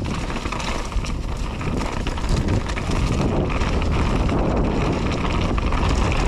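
Wind buffeting the camera microphone, with steady rumble and rattle from a mountain bike riding a downhill trail.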